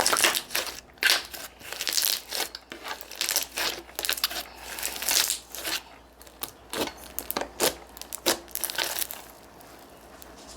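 Thick, chewy clear slime being squeezed and poked by hand, giving dense, irregular sticky crackles and small pops. The crackling stops about nine seconds in.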